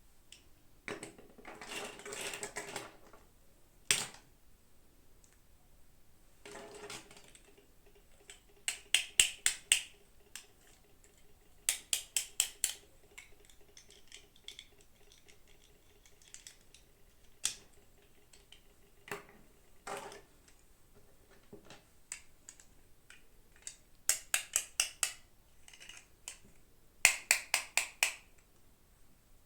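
Small toy packaging being handled and opened: a couple of rustles of plastic, then several quick runs of five or six sharp clicks and a few single clicks.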